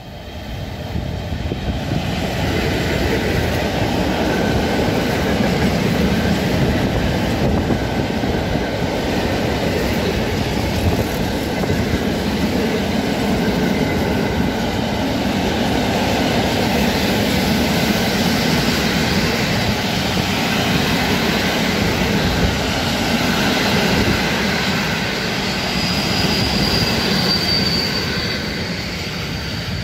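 EU07 electric locomotive and a long freight train of open coal wagons passing close by: a steady, loud rumble of wheels on rail. A thin high squeal comes in about four seconds before the end.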